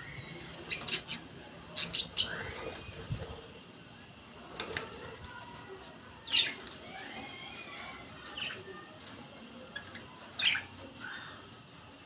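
Budgerigars chirping and chattering, with brief wing flaps as they jostle each other; sharp loud chirps come in a cluster around one to two seconds in, then singly about six and ten seconds in.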